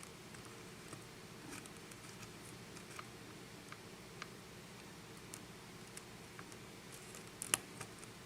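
Faint, scattered light clicks of a lock pick working the pin stacks of a Russwin six-pin cylinder under tension, over a low steady hum, with a sharper click near the end.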